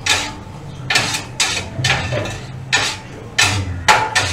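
Kottu roti being chopped on a steel hot plate with metal blades: sharp metal-on-metal clanks, about two a second in an uneven rhythm.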